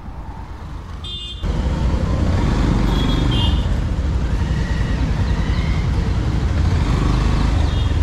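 Road traffic noise: a dense low rumble of motor vehicles that steps up suddenly about a second and a half in and then holds steady, with a few short high beeps.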